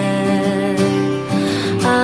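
Music: an instrumental passage of a pop ballad, guitar over sustained chords with a soft beat about once a second.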